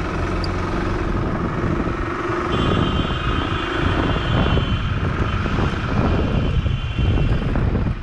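A vehicle driving along a road: steady engine and road noise. A thin high whine comes in twice in the middle.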